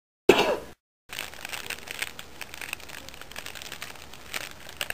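A short, loud cough, then the steady crackle of a small fire, thick with tiny snaps.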